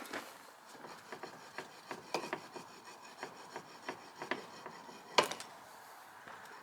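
Small hammer tapping lightly and irregularly on the old wooden sawmill carriage as it is knocked apart, with some scraping between the taps and one sharper knock about five seconds in.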